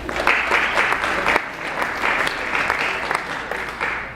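Audience applauding, a dense round of clapping that fades out near the end.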